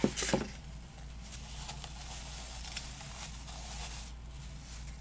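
Rustling and crinkling of packaging as an item is unwrapped and lifted out of a box, with a few small clicks and taps. It is busiest for the first few seconds and fades near the end.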